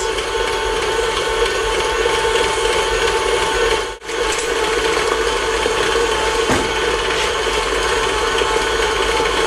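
KitchenAid stand mixer's motor running steadily at high speed, beating royal icing in its steel bowl. The sound cuts out for an instant about four seconds in, then carries on unchanged.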